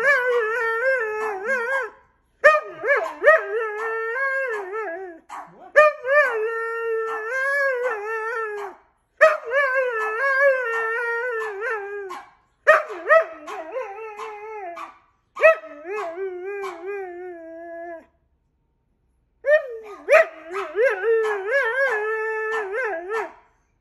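Siberian husky "talking": a long run of drawn-out, wavering howl-like vocalizations in bouts of two to three seconds each, with short breaks between them and a longer pause of over a second late on.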